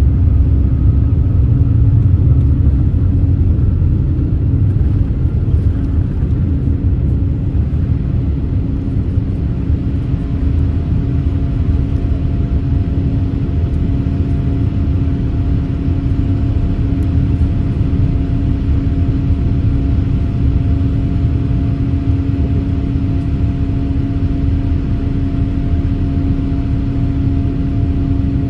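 Boeing 787-8 cabin noise during the climb after takeoff: a steady low rumble of airflow and the Rolls-Royce Trent 1000 engines, with a steady hum tone over it. The deepest rumble eases slightly a few seconds in.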